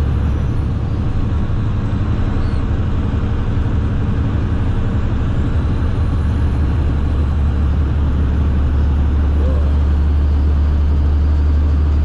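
Steady low drone of a truck's engine and road noise, heard from inside the cab while driving.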